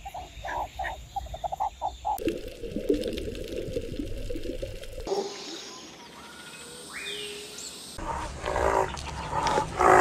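A run of animal calls cut together: first a quick series of about a dozen short pitched calls from a meerkat, then, after abrupt cuts, other animal calls, with gliding tones in the middle and louder calls near the end.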